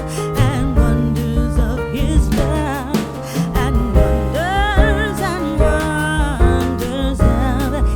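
Music: a sung melody with vibrato over bass and percussion.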